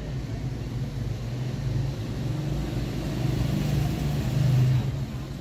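Mini Cooper R56 engine idling steadily with a low hum, swelling briefly in loudness about four and a half seconds in.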